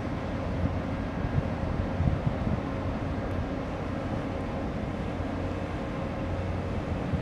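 Steady low hum of a large container ship passing close by, with faint steady machinery tones over a deep rumble. Wind buffets the microphone in irregular low thumps.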